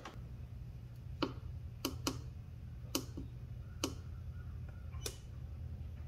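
Soft, irregular button clicks, about seven in five seconds, from a finger pressing the button on a small LCD DC battery monitor meter to clear its readings, over a low steady hum.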